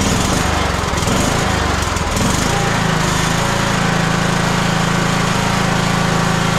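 Husqvarna lawn tractor's Kohler Courage 20 engine running steadily just after starting, settling into an even note about two and a half seconds in. It runs freely again after the hydrolock, gas flooded into the cylinder through a stuck-open carburettor float, has been cleared.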